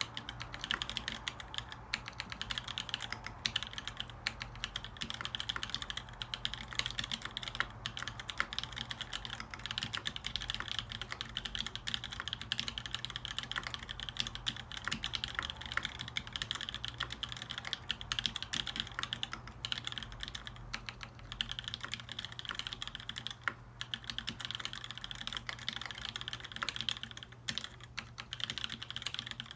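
Continuous typing on a Montage prototype custom mechanical keyboard with lubed Kailh Cream linear switches on 60 g springs, in a 2 mm aluminium plate, sandwich mount. A dense stream of key clacks runs throughout, with a couple of brief pauses.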